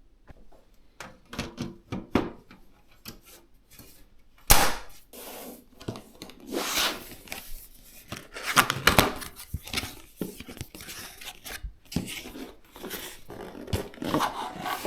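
Hands handling PC parts during assembly: an irregular run of clicks, knocks and rustling, with one sharp knock about four and a half seconds in.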